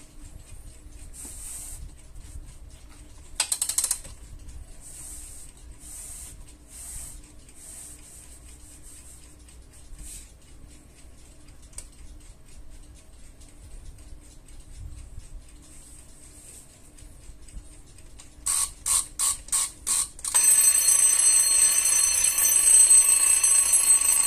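Rhythm 51141 'tulip' space-age alarm clock: faint mechanical clicks and rustling as the clock is handled, then its alarm rings in five short bursts before ringing continuously and loudly for about four seconds near the end.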